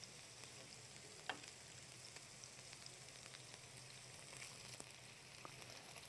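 Fish pieces frying in oil in a pan: a faint steady sizzle with scattered small crackles, and one sharp click about a second in.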